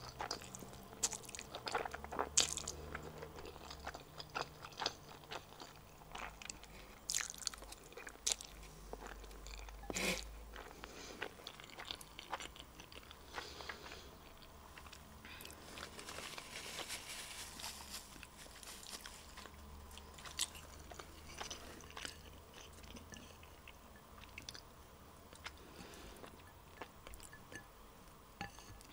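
Close-miked mouth sounds of a person eating instant black bean noodles (jjajang): slurping strands and chewing, with many short clicks throughout.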